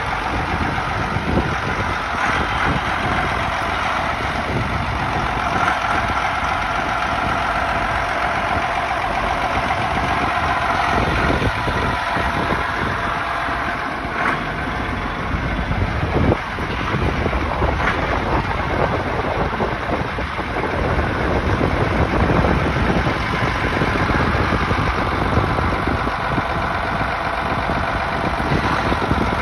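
Case tractor's diesel engine idling steadily.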